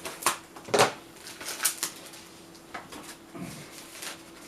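Stickers and their packaging being handled and shuffled: a string of sharp crinkles and rustles, the loudest in the first second, over a faint steady hum.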